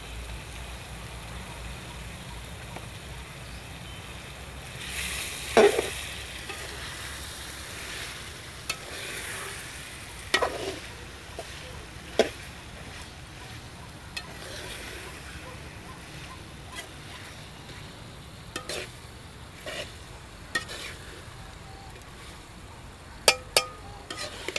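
Long steel ladle stirring and scraping bitter gourd and meat in an aluminium karahi, with a low frying sizzle and sharp clinks of the ladle against the pan now and then, loudest about five seconds in and near the end.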